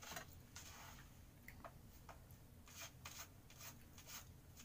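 Faint eating sounds: scattered small clicks and rubs of fingers handling breaded fried nuggets and of chewing, over near silence.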